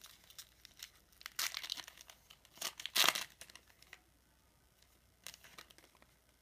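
Trading cards rustling and crinkling as a pack is handled and flipped through, in several short irregular bursts, the loudest about three seconds in.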